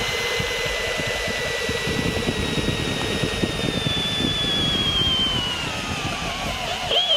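Flex cordless brushless hammer drill in drill mode on its lowest speed, boring a large auger bit into a hardwood stump with its chuck gripping by only two jaws. A steady motor whine runs over the crackle of the bit cutting wood; the whine sags gradually in pitch over the last few seconds as the load grows, then wavers near the end.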